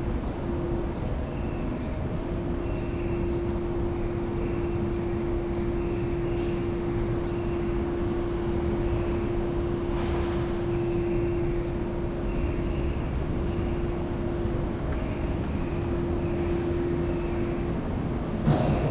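Outdoor urban background: a steady machine hum holding one note over a low rumble. Faint short high chirps repeat through it, and there is a brief thump near the end.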